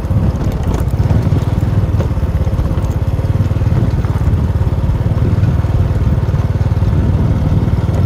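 Small motorcycle engine running steadily while riding, with a fast low throb.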